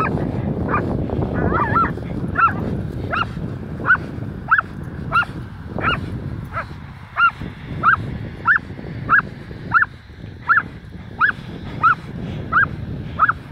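Belgian Malinois squealing during a tug-of-war game: a regular run of short, high-pitched squeals, about one and a half a second, each rising and falling, a sign of the dog's excitement at play.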